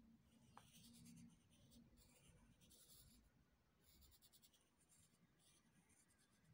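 Faint scratching of a wooden graphite pencil drawing on paper, in several short strokes with brief pauses between them.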